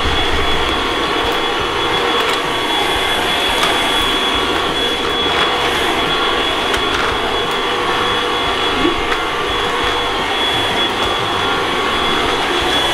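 Cordless stick vacuum cleaner running steadily as it is pushed over a tile floor: a steady rush of air with a thin high motor whine.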